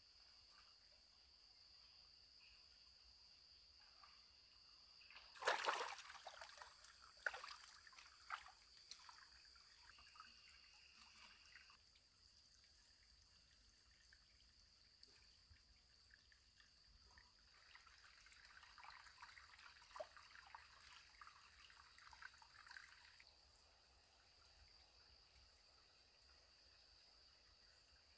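Faint water trickling and splashing in a shallow forest stream, loudest in a sharp burst about five seconds in and again in a softer patch later on, over a steady high-pitched insect drone.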